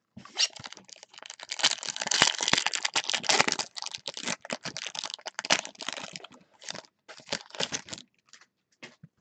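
Foil wrapper of a Topps Chrome baseball card pack being torn open and crinkled by gloved hands: a dense crackling rustle that thins to a few scattered crinkles about a second before the end.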